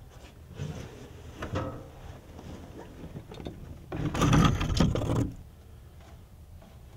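A rifle being pulled down off a wooden overhead rack: a scraping slide lasting just over a second, about four seconds in, with lighter knocks and rustles of handling before it.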